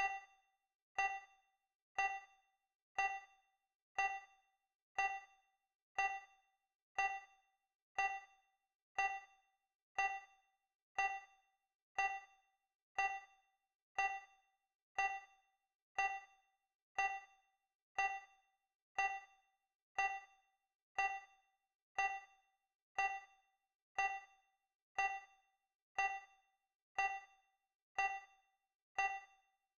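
Digital countdown timer tick sound effect: a short, bright, ding-like tick once every second, steady and regular.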